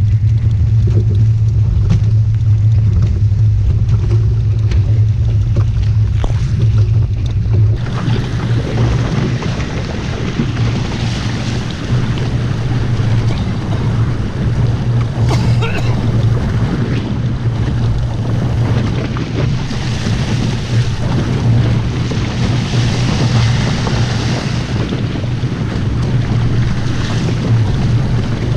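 Wind buffeting the microphone with a steady low rumble, over water rushing and splashing against the hulls of a small Hobie Cat Bravo catamaran under sail in choppy water. About eight seconds in, the water hiss gets fuller and brighter.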